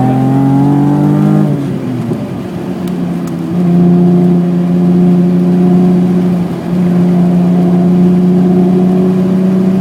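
BMW E28's 3.6-litre straight-six engine under way on a race track. The revs climb for about a second and a half, then fall away. From about three and a half seconds in it pulls at a steady pitch, with one brief dip around two-thirds of the way through.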